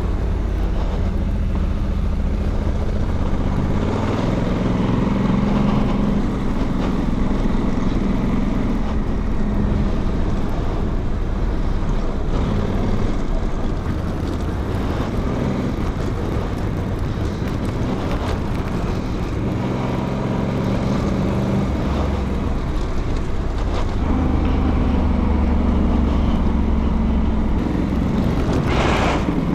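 Honda Africa Twin Adventure Sports DCT's parallel-twin engine running as the bike rides a dirt track, its note swelling and easing with the throttle, with wind and tyre noise over it.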